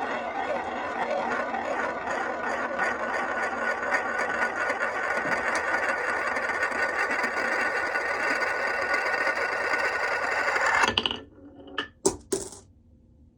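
Glass marbles rolling and rattling down a HABA wooden marble run as a steady clatter that stops suddenly about eleven seconds in, followed by a few sharp clicks.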